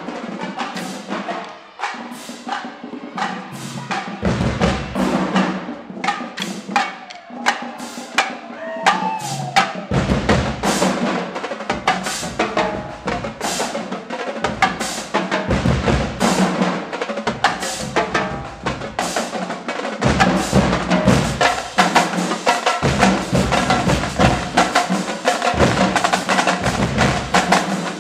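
Marching band drumline playing a cadence: snare drums with sharp stick clicks, and bass drums. It gets louder and fuller from about twenty seconds in.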